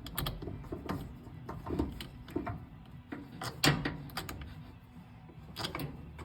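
Irregular clicks and clinks of small metal battery-terminal hardware being handled and fitted, with a few louder knocks, the loudest about three and a half seconds in.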